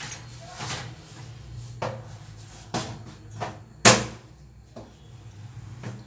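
Sharp knocks and clatters of steel kitchenware being handled around a steamer pot, about eight of them at uneven intervals, the loudest about four seconds in, over a low steady hum.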